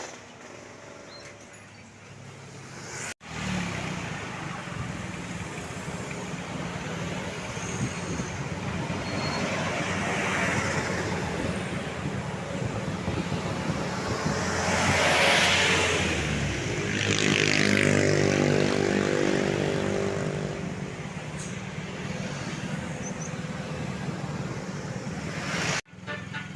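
Road traffic passing, with a steady low engine hum and vehicles going by one after another, the loudest pass about halfway through. The sound cuts out abruptly about three seconds in and again near the end.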